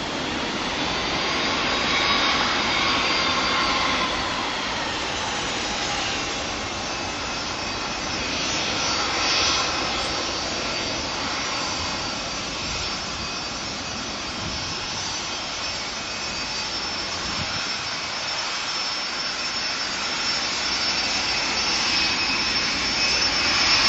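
Airbus A330-200 airliner's jet engines running steadily, a continuous rushing noise with faint whining tones that slowly slide in pitch.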